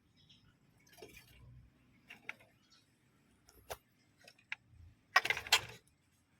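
Scattered light clicks and taps, with a louder flurry of rapid clicks about five seconds in.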